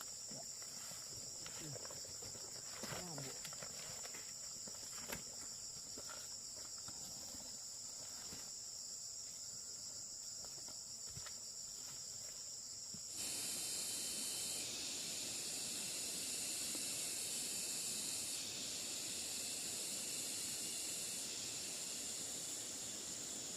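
Steady high-pitched chirring of insects, with scattered light clicks and rustles. About halfway through, a louder hiss sets in suddenly and holds with small steps in level.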